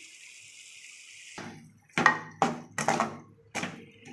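Cooking utensil stirring a thickening sauce in a pan, scraping and knocking against it in quick strokes about two to three a second, after a faint sizzle at first.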